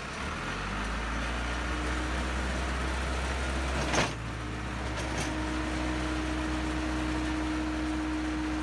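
Case 580D backhoe's diesel engine running steadily just after starting. There is a sharp knock about four seconds in, and a steady whine joins soon after as the front loader arms are raised.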